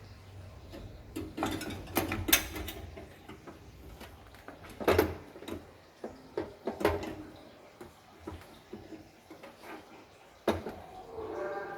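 Scattered clicks, knocks and rattles of computer parts being handled and fitted in a PC case, with the sharpest knocks about two and five seconds in.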